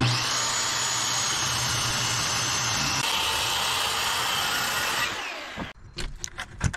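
Harbor Freight handheld circular saw ripping lengthwise through a thick white oak beam at its full 3-inch blade depth, running steadily under load for about five seconds, then winding down with a falling whine. A few short knocks follow near the end.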